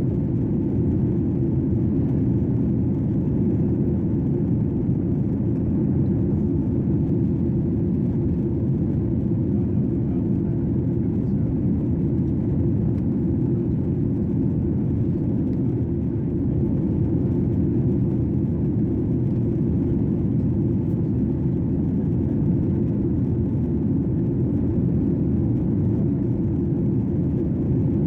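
Steady low cabin noise of an airliner in flight: engine and airflow noise heard from inside the cabin, a constant deep rumble-hiss with no change in level.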